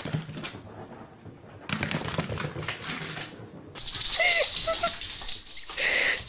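A dog's claws clicking and scrabbling rapidly on a hard wooden floor as it runs and slips, in two quick bursts with a short lull between. Near the end there is more scrabbling with a few short voice sounds.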